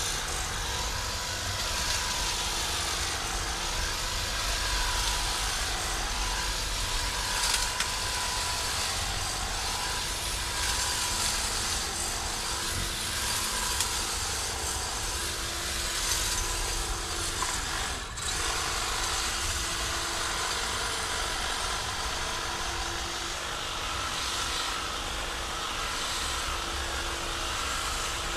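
Stihl HSA 100 cordless battery hedge trimmer running, its reciprocating blades cutting through a dense hedge. The motor's steady whine wavers up and down every couple of seconds as the blades take and shed load.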